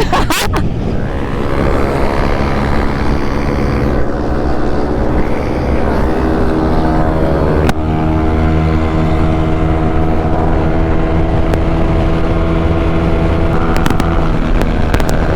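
Yamaha Aerox scooter engine running steadily under way, its pitch shifting briefly about eight seconds in.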